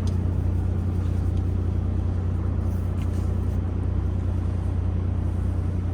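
Steady low drone of a Kenworth semi truck's diesel engine, heard inside the cab.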